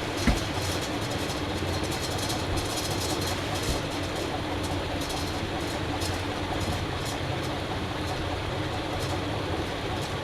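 A switch click just after the start, then the Dayton Leading Edge industrial ceiling fan's steady motor hum and rush of air as it keeps spinning.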